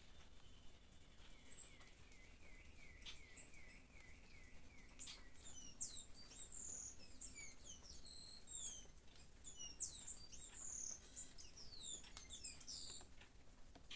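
Small songbirds singing: one repeats a short falling note about twice a second for a few seconds, then several birds twitter and chirp together, busier in the second half. A few faint ticks sound in between.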